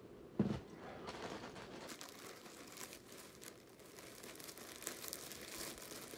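A soft thump about half a second in, then plastic packaging crinkling and rustling as a skein of yarn is handled and put back in its bag.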